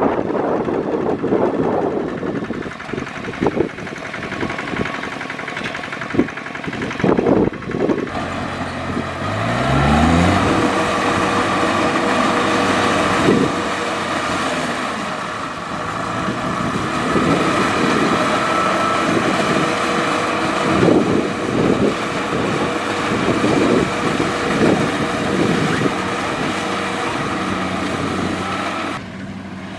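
Small tractor engine running hard. About a third of the way in it revs up in a quick rising glide, then holds a steady higher speed, with scattered knocks over it.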